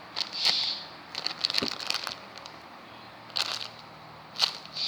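Plastic packaging crinkling in a few short crackly bursts as squishy toys are handled.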